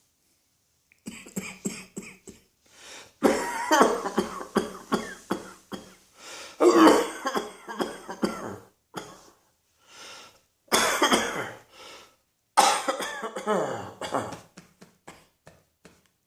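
A person coughing in repeated fits: hard coughs in quick runs of several each, with short breaths and pauses between the fits. It starts about a second in, after silence.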